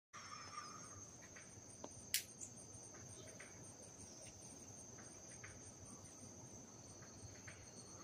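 Faint steady high-pitched insect chorus, crickets or similar chirring insects, with a single sharp click about two seconds in.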